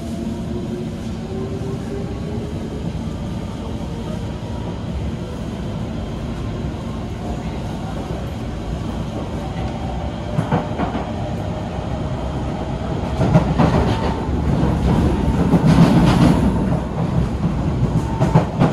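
Interior of a Kawasaki C151 metro train running between stations: a steady rumble of wheels on track with a faint motor whine that rises in pitch over the first few seconds. Clicks come about halfway through, and the running gets louder and rattlier in the last third.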